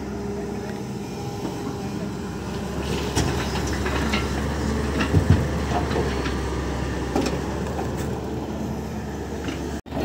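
Diesel engine of a Hyundai crawler excavator running steadily under load as it swings and dumps soil into a dump truck, with a few sharp knocks in the middle.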